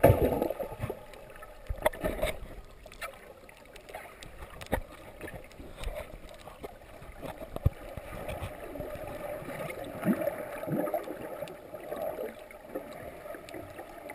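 Muffled underwater water noise picked up by a GoPro camera while snorkeling: a dull wash of moving water with scattered small clicks and knocks, and a loud rush at the very start.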